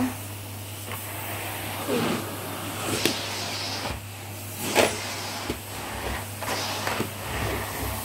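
Bosch vacuum cleaner running steadily, its floor head pushed over a pile rug, with a low steady hum and a few sharp clicks about three and five seconds in.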